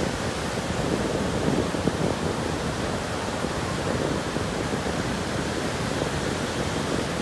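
Ocean surf breaking and washing up over the sand, a steady rush of noise.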